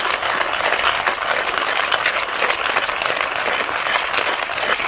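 Flafster hand-crank coffee grinder's ceramic burr crunching coffee beans as the crank is turned: a steady, dense gritty crackle that stops right at the end.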